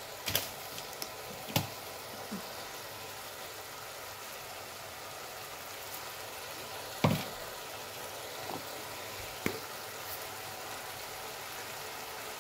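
Meat pie filling with potato and carrot simmering and sizzling in a pot on the hob, a steady hiss. A few sharp knocks sound over it, the loudest about seven seconds in.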